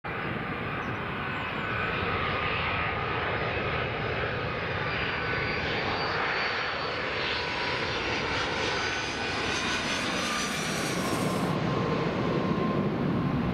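Boeing 757-200 on final approach flying low overhead, its turbofan engines giving a steady rushing roar with a faint whine. About eleven seconds in, as it passes over, the high hiss drops away and a deeper rumble takes over.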